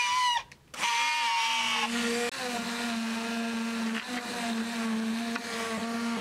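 Hand-held immersion blender puréeing red lentil soup in a metal bowl: a brief burst, a short stop, then the motor runs steadily, its whine dropping in pitch about a second in and then holding level.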